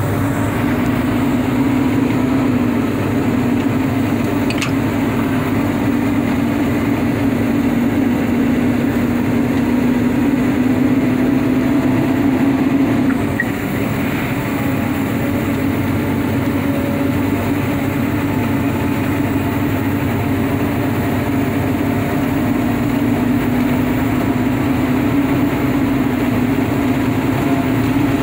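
Steady drone of a vehicle under way: engine and road noise. It dips briefly about halfway through.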